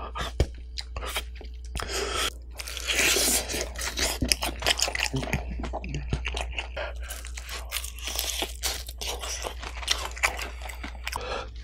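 Close-miked chewing of crispy, sauce-glazed fried chicken: a steady run of wet crunches and crackles as the coating is bitten and chewed.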